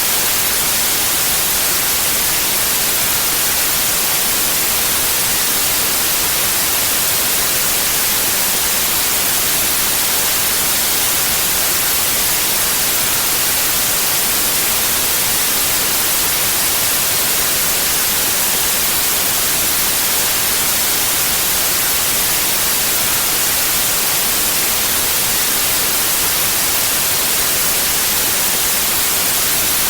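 Steady white noise: an even, hissing static that does not change, strongest in the treble.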